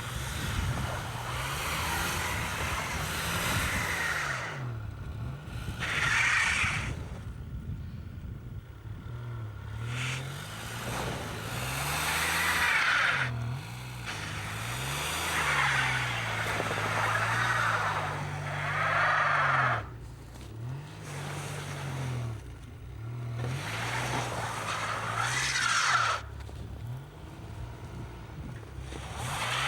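A car engine revving up and down again and again while its tyres spin and whine on snow and ice, in repeated bursts a few seconds apart: a car stuck in deep snow, trying to work free.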